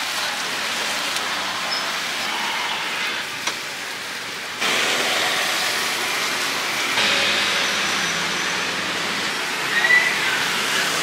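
Skewered chicken sizzling on a street-cart grill: a steady, rain-like hiss of fat spitting on the heat, with one sharp tick about three and a half seconds in.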